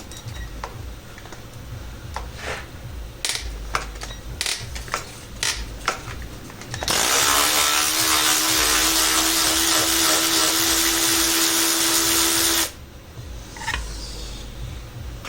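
Light metal clicks and knocks of tools on the engine, then a power tool's motor spins up and runs steadily for about six seconds before stopping abruptly, running out a bolt on the engine's accessory bracket.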